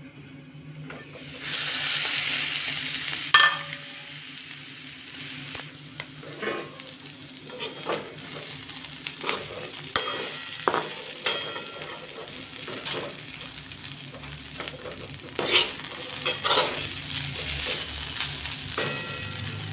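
Potato sticks frying in oil in an aluminium kadhai: the sizzle swells loud about a second and a half in as the lid comes off, followed by a sharp clank. After that a slotted metal spatula scrapes and clinks against the pan again and again as the potatoes are stirred, over a steady sizzle.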